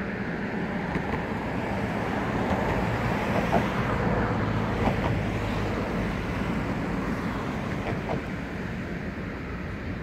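Steady traffic rumble with a low hum, swelling in the middle and easing again, with a few brief faint squeaks.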